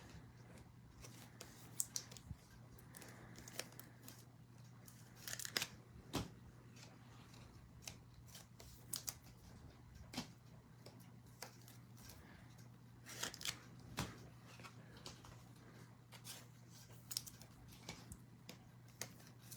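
Trading card packs and cards being handled: faint rustles, crinkles and sharp snips or tears of foil pack wrappers, with a few louder clusters, over a faint steady low hum.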